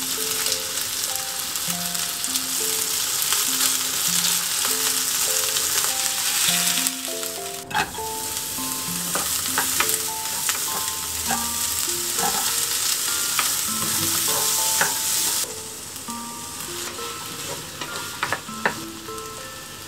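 Food frying in oil in a nonstick frying pan: flour-coated chicken pieces, then diced onion, sizzling while a wooden spatula scrapes and taps against the pan as they are stirred. The sizzle drops suddenly about three-quarters of the way through.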